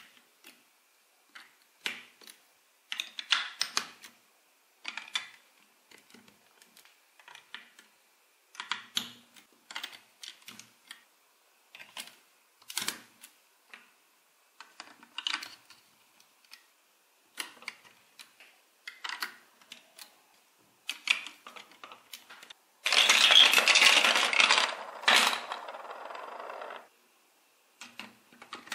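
Large plastic toy building bricks being handled and pressed together: scattered sharp clicks and taps, a few every couple of seconds. Near the end comes the loudest sound, about four seconds of dense clattering of loose plastic pieces, strong at first and then quieter before it stops.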